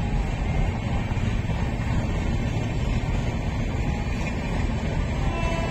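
Steady low-pitched running noise of a moving vehicle, with a few faint short tones near the end.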